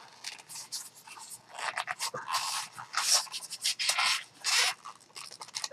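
Styrofoam packing block rubbing and scraping in the hands, a run of short, irregular scratchy strokes as the foam around the microphone is handled.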